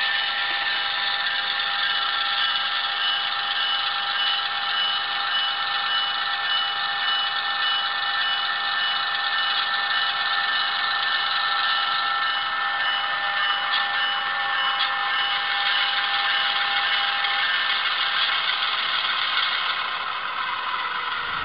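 An HO scale model diesel locomotive's onboard sound playing a steady engine idle with a rattle, thin through its small speaker, with several held whining tones.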